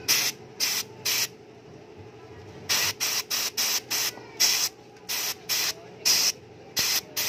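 Quick, short bursts of pressurised spray hissing into a motorcycle throttle body as it is cleaned out, about fourteen squirts with a pause after the first three.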